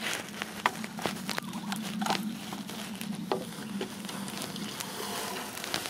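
Bamboo poles and a woven bamboo basket being handled in grass: irregular light knocks and clicks with rustling, over a steady low hum.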